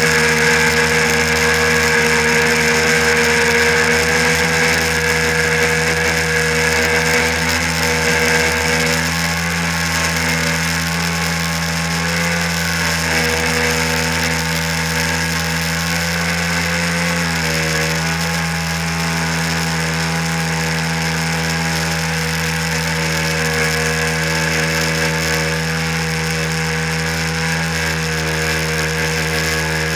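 1997 Sea-Doo SPX personal watercraft's two-stroke twin engine running hard at speed while towing a tube, with the rush of its jet wake and spray. The engine tone stays steady apart from a few slight dips and rises in pitch, about 8 seconds in and again a little past halfway.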